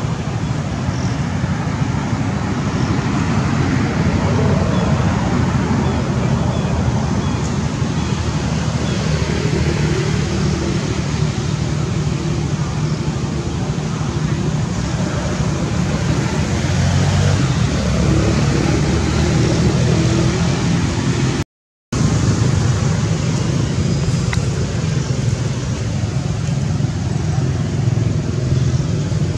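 Steady outdoor background noise: a continuous low rumble with hiss, like road traffic, broken by a split-second dropout about two-thirds of the way through.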